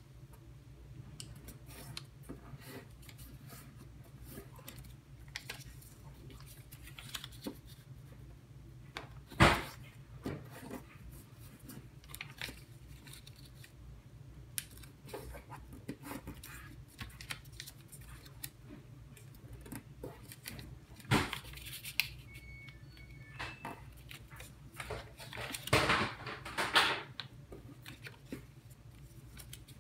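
A pre-creased sheet of origami paper being folded and creased by hand: scattered crinkles and rustles, with louder crackles about nine, twenty-one and twenty-six seconds in, over a steady low hum.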